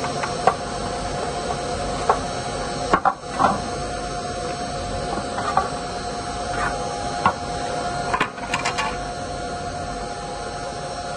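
Scattered light clicks and taps of a screwdriver and small metal parts being handled while a juicer's plastic safety cover is taken apart, a few knocks together near the end. Underneath, a steady machine hum with a couple of fixed tones.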